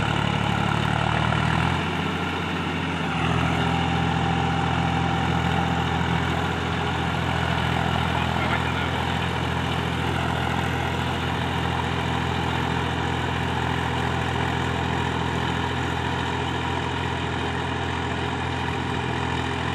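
Massey Ferguson tractor's diesel engine running steadily under load as it pulls a rotary tiller through flooded mud. Its low drone dips briefly about two seconds in, then carries on evenly.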